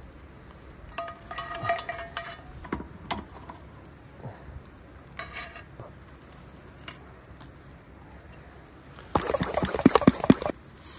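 Metal tongs clinking and scraping on a charcoal grill grate and a cast-iron skillet, with a short ringing scrape about a second in. Near the end, the loudest sound: a spray bottle pumped several times in quick succession, spritzing the meat on the grill.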